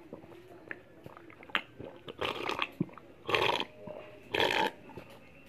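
A person slurping a drink from a glass: small mouth clicks, then three short, loud slurps about a second apart.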